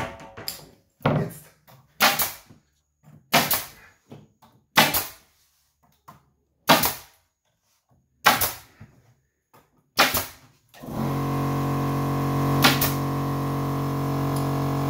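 Pneumatic nail gun firing about eight times, a second or two apart, driving nails through wooden cladding boards into the battens. About eleven seconds in, an air compressor starts and runs with a steady hum, refilling its tank.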